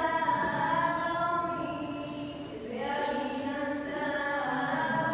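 Chanted singing in long, slowly gliding held notes. One phrase ends about two and a half seconds in and a new one begins.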